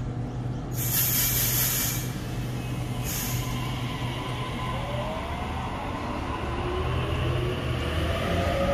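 Sydney Trains Waratah electric train pulling away: the air brakes release with a long hiss about a second in and a short one a couple of seconds later. Then the traction motors' whine rises steadily in pitch as it starts to accelerate, over a steady low hum.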